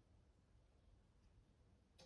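Near silence, with only a faint low hum.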